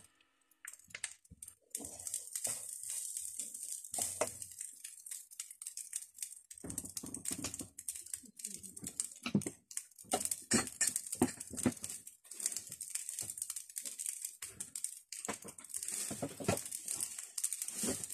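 Wooden spatula stirring and scraping fried rice around a wok, giving irregular taps and scrapes over a light sizzle.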